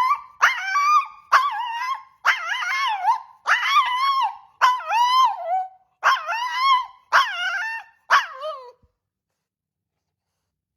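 Dog 'talking': a run of about nine short, high, wavering howl-like yips and whines, one after another, each bending up and down in pitch.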